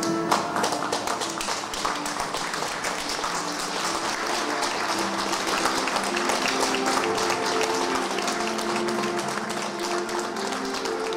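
A crowd applauding, many hands clapping at once, with music playing held notes underneath.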